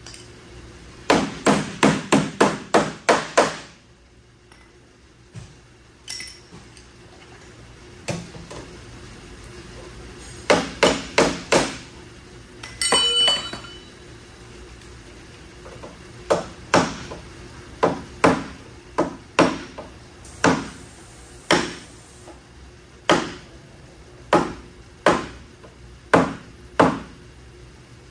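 Hammer strikes on the van's sheet-metal body during frame-pull repair: a quick run of about seven blows, a shorter run of four, and a brief ringing clank. After that comes a long series of strikes about two a second.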